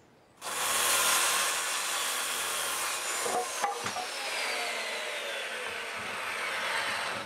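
Circular saw running and cutting through a 2x8 pine board: a loud, steady saw noise that starts about half a second in, with a whine that slowly falls in pitch through the second half.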